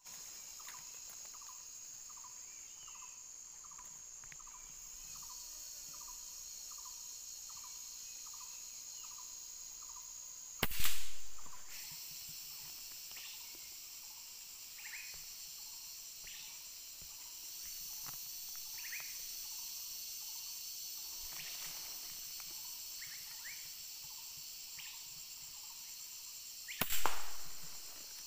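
Two gunshots, one about eleven seconds in and one near the end, each a sharp crack with a short echoing tail, over a steady chorus of insects.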